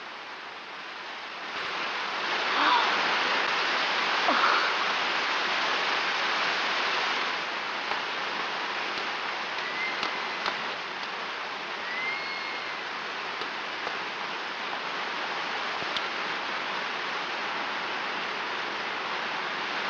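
Water of the Trevi Fountain rushing and splashing in a steady roar, growing louder about a second and a half in.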